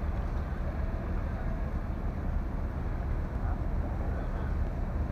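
Harbour ambience: a steady low rumble with a few faint short high notes over it.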